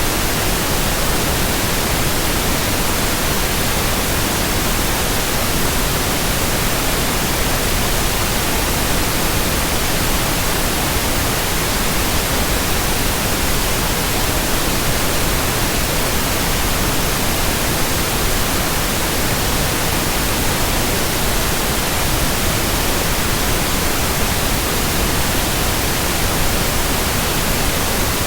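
Steady white noise: an even, unbroken hiss that is strongest in the high pitches, with no rhythm, tone or change.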